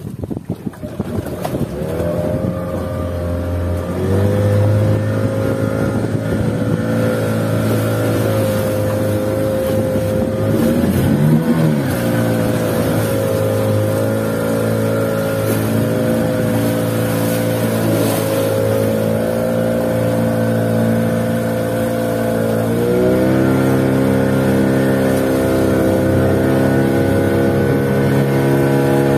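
Fishing boat's motor running steadily. Its pitch rises as the throttle opens a few seconds in, wavers briefly about eleven seconds in, and steps up again past twenty-two seconds.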